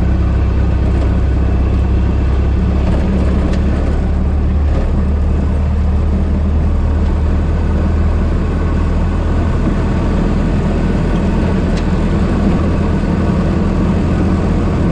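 1926 Ford Model T's four-cylinder engine running while driving, holding a steady low note with no change in speed.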